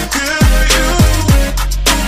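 Background music with a steady beat of deep bass drum hits that drop in pitch.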